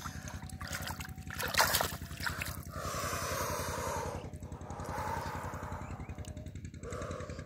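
Hands splashing and sloshing in shallow muddy water, with a few splashy spells, over a small engine running steadily in the background.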